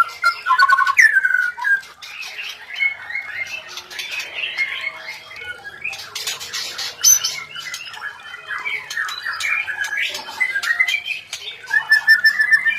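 A mating pair of white-rumped shamas calling without a break: quick whistled notes and glides mixed with harsh squawks, with a harsh, scratchy chatter about halfway through.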